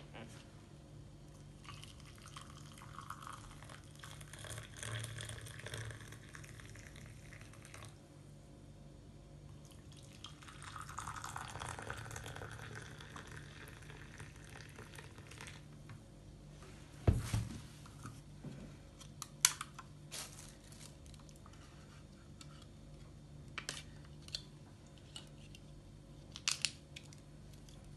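Hot water poured from a kettle into a ceramic coffee mug, twice, for a few seconds each time. Then one sharp knock, followed by a few scattered clicks and crinkles as plastic creamer cups are peeled open.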